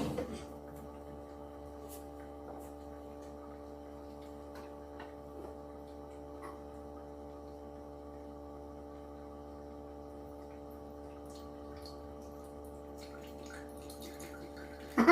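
A steady, even hum made of several held tones, with a few faint clicks scattered through it.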